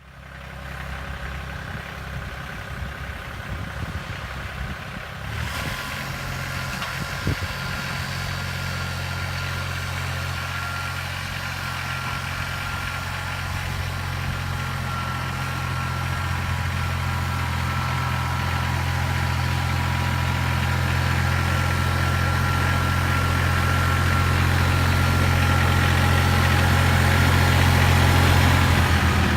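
Kubota L2800 tractor's three-cylinder diesel engine running steadily, becoming gradually louder.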